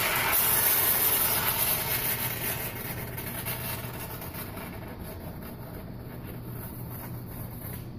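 Aerosol can of Great Stuff expanding spray foam hissing as foam is dispensed, loudest at first and slowly tapering off.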